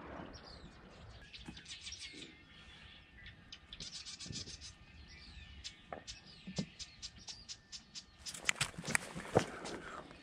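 Faint chirping of small birds in a marsh, with a few sharp clicks about eight to nine seconds in.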